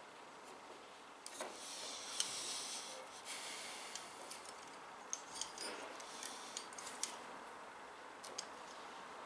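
Computer parts being handled during PC assembly: scattered light clicks, taps and scraping of hard plastic and metal, with stretches of rustling about one and a half and three seconds in.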